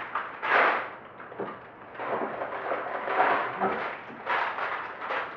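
Sealed plastic Lego parts bags crinkling as they are handled, in several sudden bursts of rustle, the loudest about half a second in.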